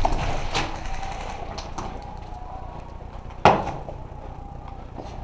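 Scattered airsoft gunfire: a few sharp single snaps, the loudest about three and a half seconds in, over a steady low background rumble.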